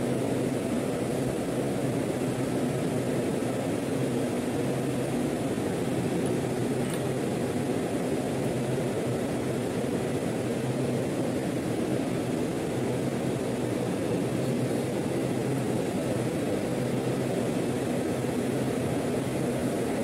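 Industrial plant machinery running with a steady, even drone and low hum that does not change.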